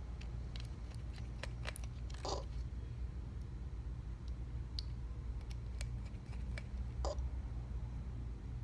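Small tools and phone parts being handled during an iPhone 6s repair: scattered light clicks, with two short scrapes about two seconds in and about seven seconds in, over a steady low hum.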